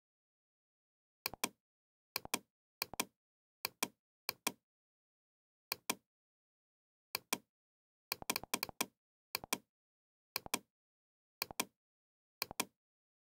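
Computer mouse button clicking, each click a quick double tick of press and release. About fourteen clicks come at irregular gaps of roughly a second, with a faster run of three a little past the middle, and nothing heard between them.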